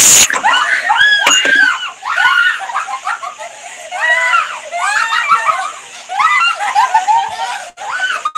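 A loud burst of static-like jumpscare noise cuts off just after the start. Then a group of girls and a child scream in fright, the high shrieks turning to laughter near the end.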